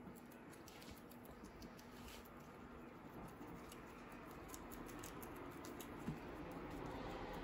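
Guinea pigs munching lettuce leaves: many quick, faint crunching clicks, with one soft thump about six seconds in.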